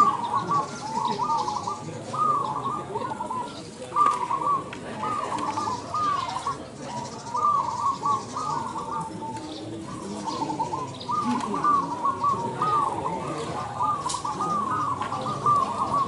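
Several caged zebra doves (perkutut) cooing at once, their short arching coos repeating and overlapping without a break.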